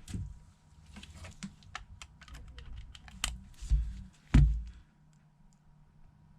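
Irregular small clicks and taps of hands handling an iPhone and small parts on a work surface, with a heavier thump about four and a half seconds in.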